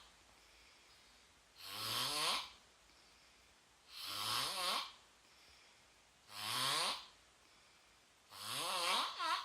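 Snoring: four long snores about two and a half seconds apart, each rising in pitch as it goes. The last one breaks in two near the end.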